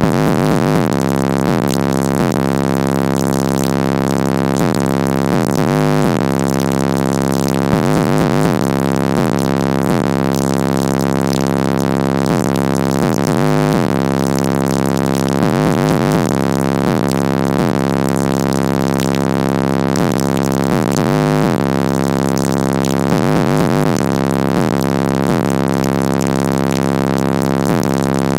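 Bass-heavy music played very loud through four Incriminator Audio Death Penalty 18-inch subwoofers, heard from inside the car's cabin while driving, with deep bass notes that change every few seconds.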